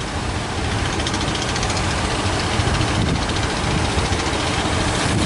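An engine running steadily under a loud, even wash of wind on the microphone and surf.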